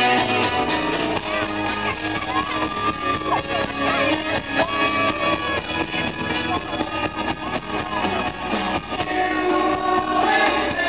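Live pop-rock band playing, with strummed acoustic guitar, drums and singing that holds long, wavering notes. It is heard from within the audience, with the top end dulled.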